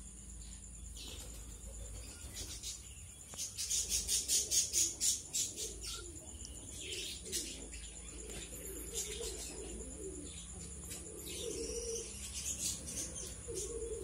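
Aviary birds calling: a fast run of high chirps from about three and a half to five and a half seconds in, over lower warbling calls that grow busier in the second half.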